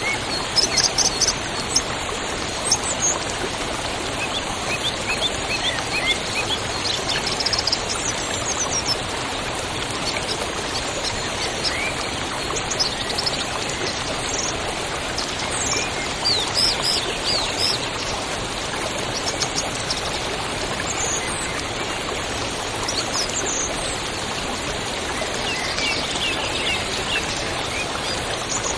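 River water rushing steadily, with small birds chirping and calling on and off above it, a quick run of calls near the end.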